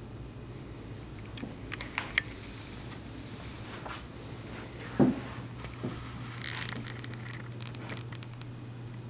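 Handling noise from a handheld camera being moved: scattered small clicks and rustles over a steady low hum, with one sharp thump about five seconds in.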